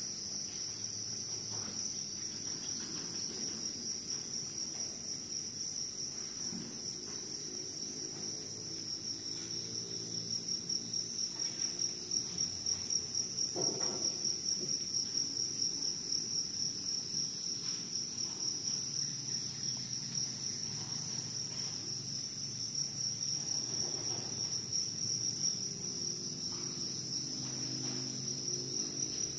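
Crickets chirping continuously, a steady high-pitched trill with no pauses.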